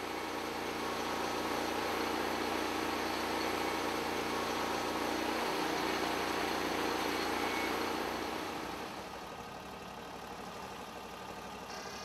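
Norwood LumberPro HD36 band sawmill running as its blade cuts through a log: a steady engine hum with a wide whirring spread of noise over it. The sound drops to a lower, quieter level about nine seconds in.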